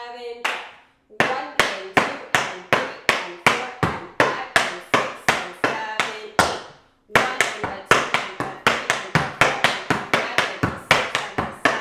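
Tap shoes' metal taps striking a wooden tap board in a steady run of sharp clicks, about four a second. There is a short break about six and a half seconds in, then the tapping starts again, a little quicker.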